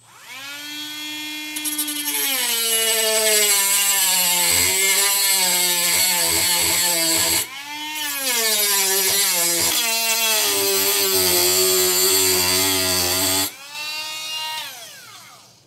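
Dremel rotary tool with an abrasive cut-off wheel cutting slots into a penny. The motor whines up to speed, its pitch wavering while it cuts; about halfway through it stops briefly and spins up again for a second cut, then winds down near the end.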